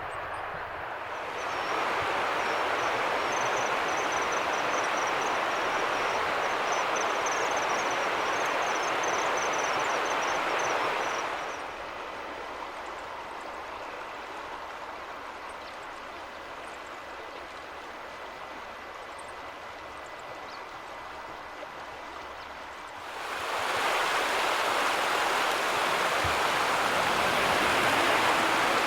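Flowing river water rushing steadily. It runs louder at first, softens sharply about twelve seconds in, and grows loud again near the end. A faint high twittering sits over the first loud stretch.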